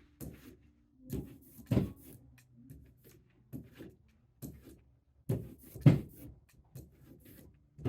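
Irregular knocks and clunks of objects handled and set down on a worktable, with two louder thumps about 2 and 6 seconds in.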